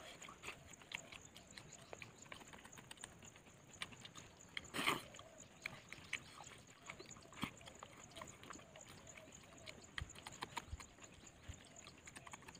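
Faint scattered clicks and rustles of people eating rice with their hands from foil plates, with one louder brief rustle about five seconds in, over a faint steady high-pitched tone.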